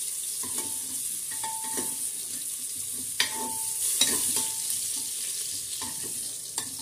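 Raw papaya pieces sizzling as they fry in oil in a pressure cooker, while a metal spatula stirs them. The spatula knocks against the pot several times with short ringing clinks, the loudest about three seconds in.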